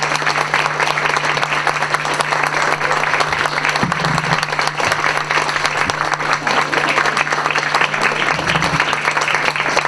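Audience applauding steadily with many hands clapping, a dense continuous crackle of claps, over a steady low hum.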